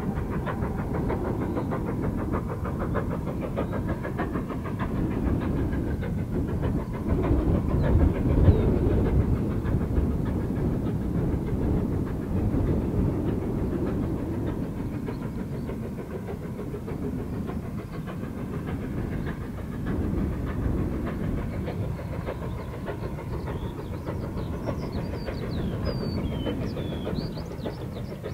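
GWR Small Prairie 2-6-2 tank engine No. 4555 working hard with its train, a steady rapid beat of exhaust chuffs heard across open fields, loudest about a third of the way in. Birds chirp faintly near the end.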